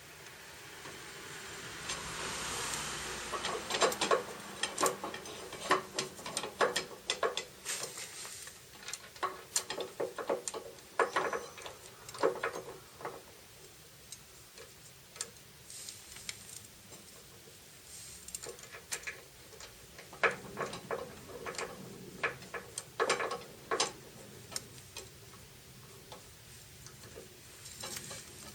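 Irregular clicking and tapping in clusters, with a short hiss about two seconds in.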